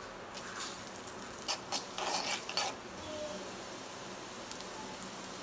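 Chopped onion frying in hot oil in a metal kadai, a steady sizzle. From about a second and a half in, a spell of utensil scrapes and clinks against the metal pan.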